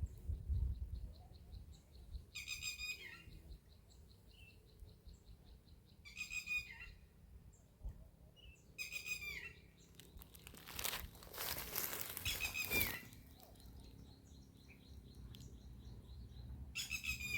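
A bird calling four times, several seconds apart, each call short and dropping in pitch at the end, over a faint, fast, steady trill. Around the middle a rush of noise lasts about two seconds.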